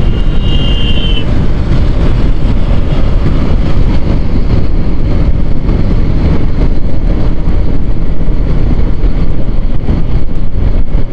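Steady wind rush on the microphone of a Yamaha R15 V3 cruising at about 60 km/h in fifth gear, with the bike's riding noise underneath. A short high-pitched tone sounds in about the first second.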